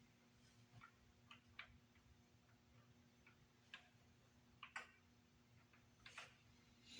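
Faint, irregular clicks and light metallic taps of hand tools being handled on the engine, over a low steady hum.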